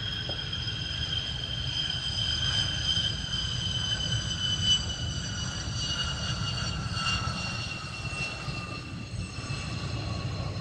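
F-15 fighter jet's twin turbofan engines running on the runway: a high whine over a steady low rumble, the whine falling slowly in pitch as the jet moves.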